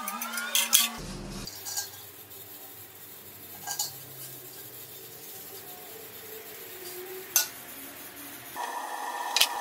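Light clinks and scrapes of steel parts and tools handled on a steel welding table, loudest in the first second and faint after, with a few isolated clicks. Near the end a steady whine sets in.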